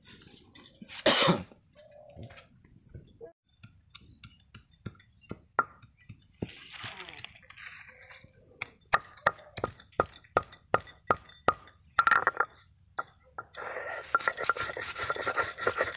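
Repeated sharp, clinking taps of a hand-held stone muller striking a flat grinding stone (sil-batta), crushing garlic for a chutney, with a denser stretch of grinding and scraping near the end.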